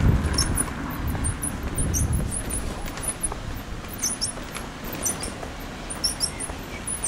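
Pram being pushed over a paved path, its wheels rumbling low and steadily, with many short high-pitched squeaks scattered throughout.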